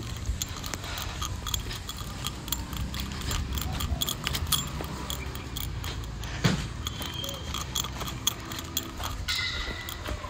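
Light, irregular jingling and clicking of small things carried by a person walking, over a low rumble from the handheld phone's microphone, with one louder click about six and a half seconds in.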